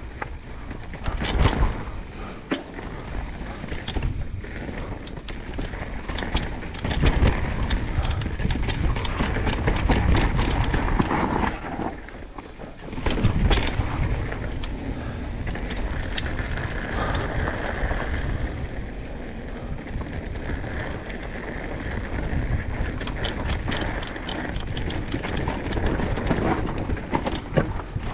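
Mountain bike descending a rough dirt trail: a steady rumble of tyres and wind on the microphone, with repeated sharp knocks and clatter as the bike hits bumps and drops.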